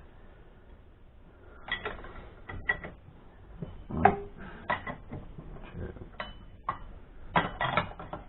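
Metal tool clicks and clanks from a spanner working coil spring compressors on a car's front suspension strut, as the spring is compressed for reassembly. A run of irregular sharp knocks begins about two seconds in, with the loudest clank in the middle.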